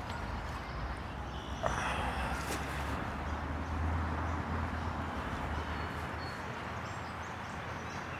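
Outdoor park ambience: a steady low rumble of distant traffic with faint high chirps. About a second and a half in comes a short rustle of clothing as someone sits down on a wooden bench.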